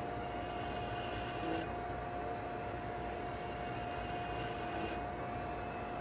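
Laguna wood lathe running with a steady motor whine while a hand-held turning tool cuts the spinning curly cherry handle, a higher hiss coming and going in two spells.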